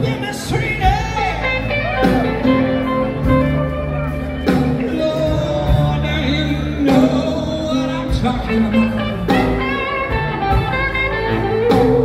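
A live blues band playing: a singer over electric guitars, keyboard and drums, with sharp drum and cymbal accents every couple of seconds.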